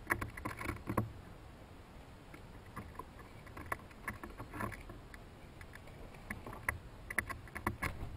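Chipmunks shucking corn: irregular crackling and clicking as they work at the cob. The clicks come in quick clusters near the start and again toward the end, with sparser ones in between.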